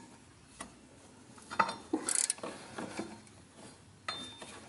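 Metal hand tools clinking and knocking against the engine parts under the car, with a brief sharp scrape about two seconds in, while working on the 5 mm screws that hold the diverter valve to the turbo.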